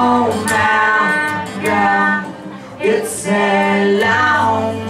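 Live music: a voice singing long held notes with slides between them, over a steady instrumental accompaniment.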